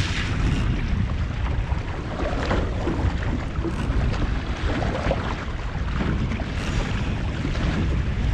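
Musto Skiff dinghy under sail in a breeze: water rushing and slapping along the hull, with wind buffeting the microphone.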